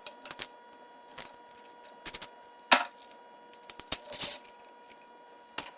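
Hand tools clicking and clinking on metal bike parts during removal of the stem and handlebars: scattered light clicks, one sharp knock near the middle and a short rasp about four seconds in.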